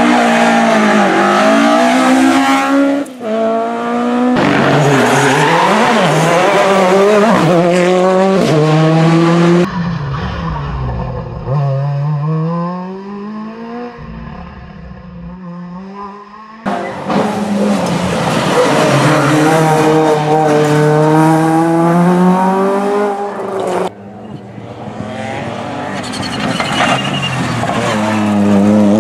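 Rally car engines revving hard as cars pass one after another, each engine note climbing and then dropping at the gear changes. In one stretch in the middle the car is further off and quieter.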